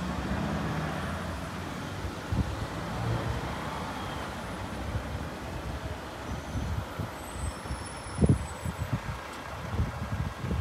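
A lorry's diesel engine running as it pulls up behind queued cars, over a steady murmur of road traffic. Gusts of wind buffet the microphone in uneven low thuds, the strongest about eight seconds in.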